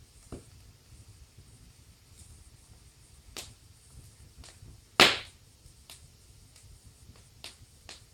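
Fire in a fireplace crackling, with scattered sharp pops over a low steady rumble; the loudest pop comes about five seconds in.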